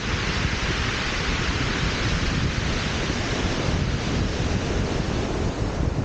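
Surf breaking and washing over a shingle beach, with wind buffeting the microphone as a steady low rumble. The hiss of a wave's wash swells at the start and eases off by about halfway through.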